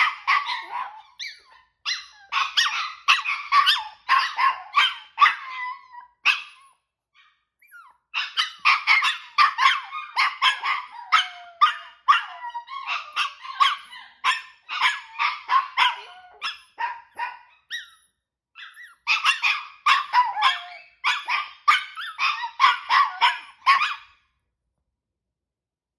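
Small Chihuahua-poodle mix dogs yapping in long rapid runs, about five barks a second, with a couple of short pauses; the dogs are anxious. The barking stops near the end.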